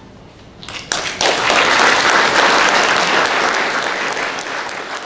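Audience applause: a few scattered claps, then from about a second in a full round of clapping that starts to die down near the end.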